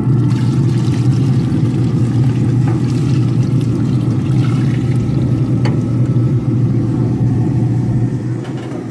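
Chicken broth pouring from a carton into a cast-iron Dutch oven of beans and ham hocks, stopping about 8 seconds in, over the steady low hum of the Traeger pellet grill's fan.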